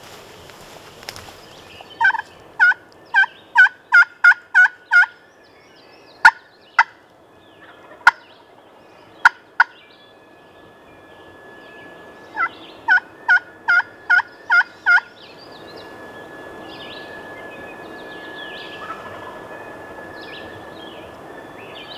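Turkey yelping: two runs of about seven loud two-toned yelps, each note breaking from high to low, with a handful of short, sharp cutts between the runs.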